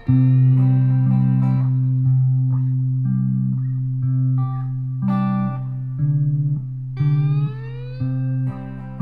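Guitar music: a held low note under a melody of plucked notes, some of which slide up or down in pitch.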